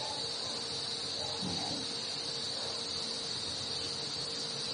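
A steady, high-pitched background drone, with a faint low murmur about a second and a half in.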